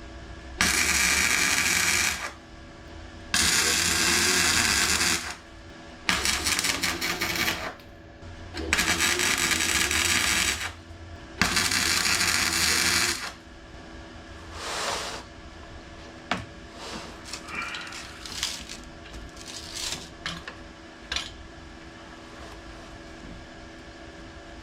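Welder laying short runs of weld on a car's sill panel: five crackling bursts of about two seconds each with brief pauses between. After them, a few faint clicks and knocks.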